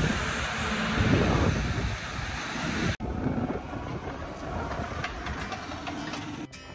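Gusty wind buffeting the microphone, a loud rushing rumble that cuts off abruptly about three seconds in. A quieter outdoor rumble follows, and acoustic guitar music starts near the end.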